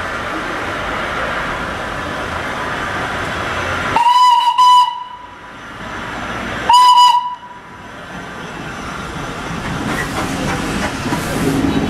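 Darjeeling Himalayan Railway steam locomotive hissing steam, then sounding its steam whistle: a short double toot about four seconds in and a second single blast about three seconds later, one shrill tone each time.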